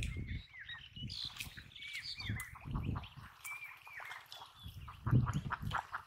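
A small bird chirping repeatedly in short hooked calls, over water sloshing and splashing as a man wades and hauls in a cast net, with the loudest splash near the end.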